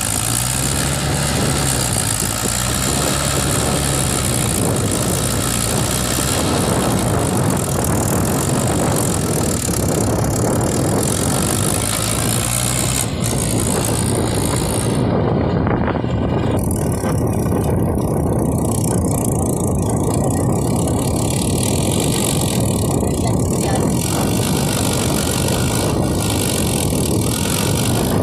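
Diesel tractor engines running steadily at close range, one of them a Mahindra DI 575 XP Plus working to pull its loaded trailer out of mud.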